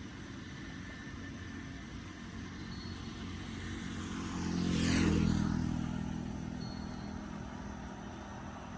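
A motor vehicle drives past, its engine and tyres growing louder to a peak about halfway through, then fading away.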